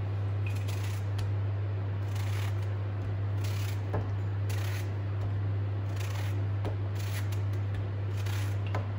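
Kitchen knife cutting pieces off a soft vegetable held in the hand, with scattered short scraping cuts and a sharp knock about four seconds in, over a steady low hum.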